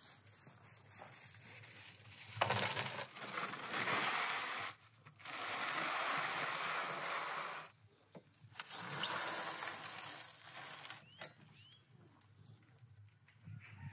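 Metal baking tray scraping across the stone floor of a wood-fired brick oven, with foil rustling, in three stretches of steady scraping noise that stop abruptly.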